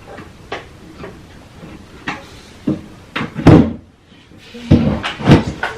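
Particle-board panels of a cube organizer knocking together as a panel that won't go in is shifted and pushed into place: a run of separate wooden knocks, the loudest about three and a half seconds in and two more strong ones near the end.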